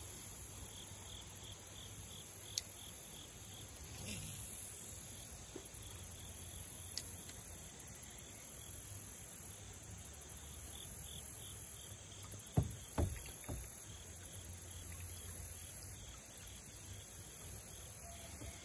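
Crickets and other insects chirping steadily in a quiet creekside background, with a low rumble underneath. A few short dull knocks come about two-thirds of the way through.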